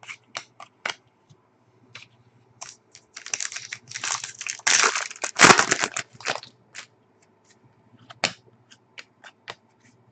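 Trading cards being handled, with scattered sharp snapping clicks, and about three seconds of loud crinkling and tearing of packaging in the middle.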